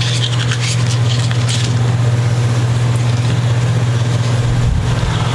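Hand sanding of an instrument body's finish with fine 320-grit sandpaper: a few rasping strokes in the first second and a half, over a steady low hum.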